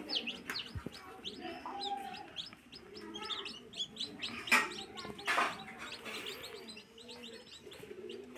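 Newly hatched chicks peeping: many short, high cheeps, each falling in pitch, overlapping continuously. Two short, louder noises stand out about four and a half and five and a half seconds in.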